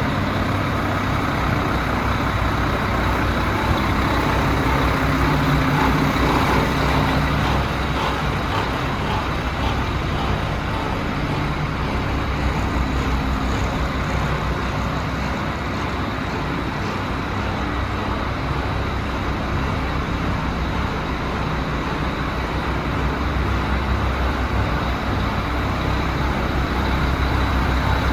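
Turbocharged diesel engine of a DAF CF75 310 truck idling steadily.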